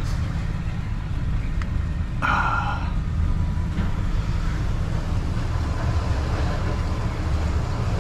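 Vehicle engine running with a steady low rumble, and a short burst of noise about two seconds in.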